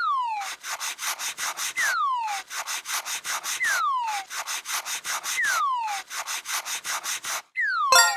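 Cartoon sound effect of rapid rasping, scraping strokes, about six a second, in four runs. Each run is opened by a falling whistle-like tone.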